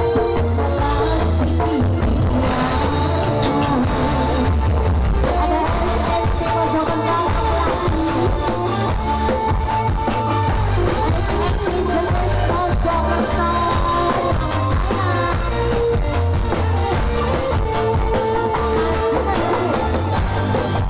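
Live dangdut koplo band music played loud over the stage PA, with a steady bass beat, drums and keyboards, and singing in parts, heard from the crowd.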